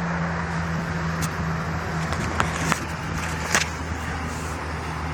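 A steady low mechanical hum, with a few sharp clicks and taps from papers and folders being handled in a box.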